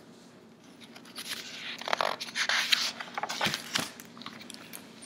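Pages of a hardback picture book being turned by hand: paper rustling and sliding, with a couple of soft knocks about three and a half seconds in.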